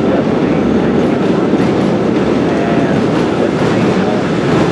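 A Brightline passenger train rolling across a steel-girder railroad bridge: a loud, steady noise of its wheels running on the rails.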